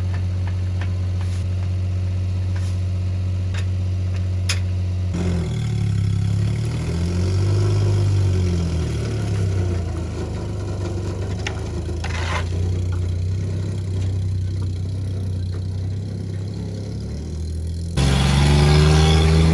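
Kei mini truck's small engine idling steadily, then revving up and down, its pitch rising and falling, as it moves off towing a boat trailer. Near the end the engine comes in suddenly louder.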